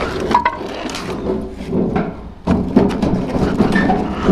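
Thin wooden slats and planks knocking and clattering against each other as they are lifted and stacked, with a run of sharp wooden knocks.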